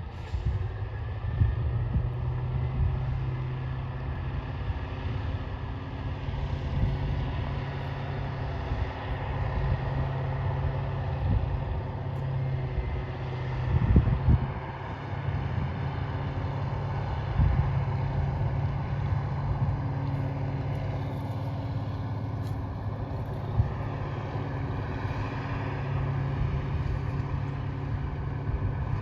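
Heavy diesel vehicle engine running steadily under load, with a brief louder surge about halfway through.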